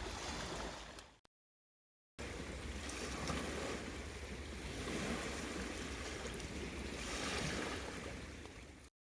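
Steady surf washing on a shore, cut off twice by short spells of dead silence.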